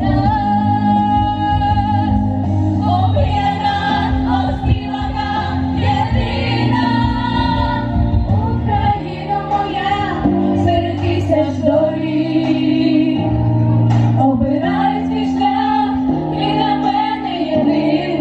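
Female vocal group singing a song with instrumental backing, holding long notes that glide between pitches.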